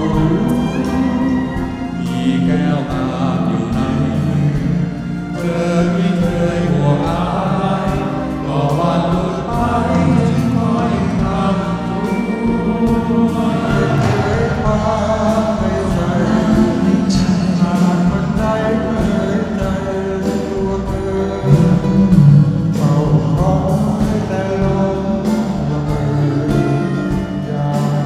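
Live concert performance: male vocalists singing a song into microphones with a backing band playing.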